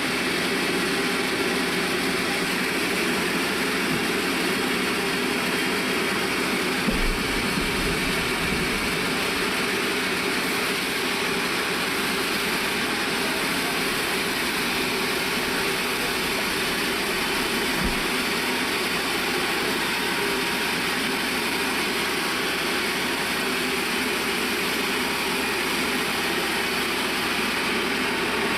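Sawmill band saw running steadily, an even mechanical noise from its blade and drive. There is a brief low thump about seven seconds in and a short knock around eighteen seconds.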